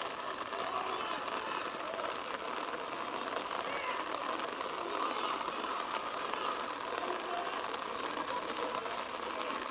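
Indistinct distant voices calling over a steady, even background hiss.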